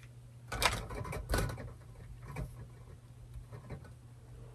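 Chrome-plated metal tubes and fittings of a rolling garment rack being handled and fitted together: a few light knocks and clacks, the loudest in the first second and a half, with smaller ones later. A steady low hum runs underneath.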